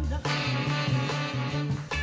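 Upbeat background music with a steady, bouncing bass beat and instruments playing over it.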